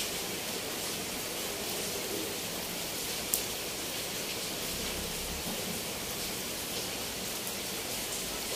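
Steady rain falling on a corrugated roof and leafy foliage, an even hiss of drops. One sharp tap stands out a little over three seconds in.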